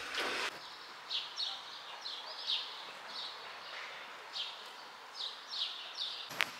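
A small bird chirping, short high chirps in small irregular groups, with a brief rush of noise at the start and a single sharp click near the end.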